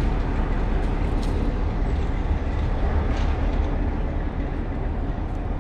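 Class 60 diesel locomotive's eight-cylinder Mirrlees diesel engine running as the locomotive moves away along the line: a steady, deep drone that eases slightly toward the end.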